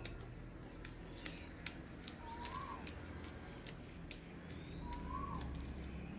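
Light cracking and ticking of eggshell as boiled eggs are peeled by hand, with a bird's short whistle that rises and falls, heard twice about three seconds apart.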